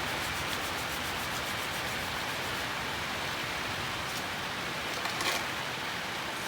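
Steady outdoor hiss with a few faint clicks and rustles, one slightly louder about five seconds in.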